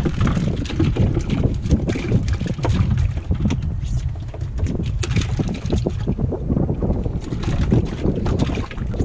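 Fishing boat under way on open water, its engine and hull noise mixed with wind buffeting the microphone in uneven gusts.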